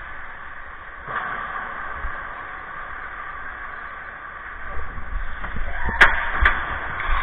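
Ice hockey rink play: a steady hiss with two sharp knocks about half a second apart near the end, over a low rumble that builds in the second half.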